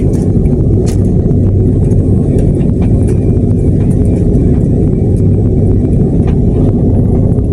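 Inside the cabin of a Garuda Indonesia jet airliner taxiing: a steady, loud low rumble and hum from the jet engines and the landing gear rolling over the pavement, with scattered light knocks.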